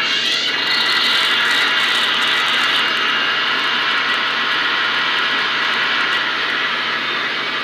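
Sound decoder in an N-scale VIA F40PH-2D model locomotive playing a steady diesel locomotive engine running sound through its tiny onboard speaker, with no deep bass.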